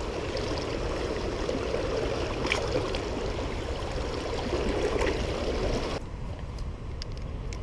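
Creek water flowing and trickling in a steady rush, quieter from about six seconds in.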